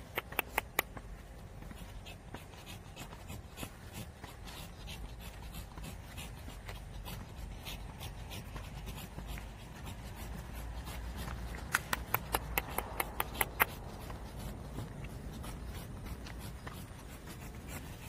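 A Pekingese's claws ticking on asphalt as it trots, heard as two quick runs of sharp clicks, about four or five a second: one at the very start and one lasting about two seconds around twelve seconds in. A steady low rumble lies underneath.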